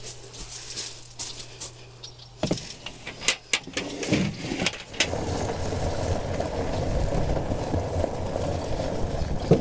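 Galvanized metal tub set down in the bed of a Gator utility vehicle with a few sharp metal knocks. From about halfway through, the Gator drives over gravel with a steady rumble.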